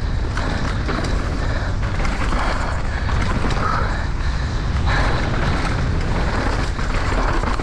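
A downhill mountain bike ridden flat out over a loose dirt trail: wind rushing over the microphone with the tyres and bike rattling and clattering over the rough ground, steady and without a break.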